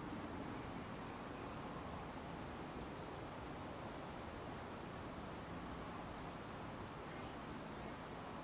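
An insect chirping in short, high double chirps, about seven pairs at an even pace of roughly one pair every three-quarters of a second, starting about two seconds in, over a steady background hiss.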